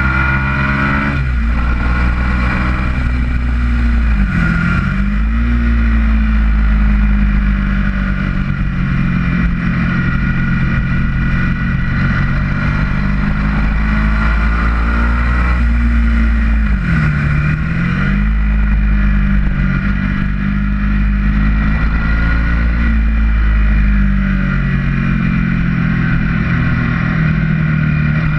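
Ducati motorcycle's twin-cylinder engine running hard on track, heard from onboard along with the rush of riding. About four seconds in, and again around seventeen seconds, its pitch dips sharply and climbs straight back up, as the bike slows for a corner and accelerates out.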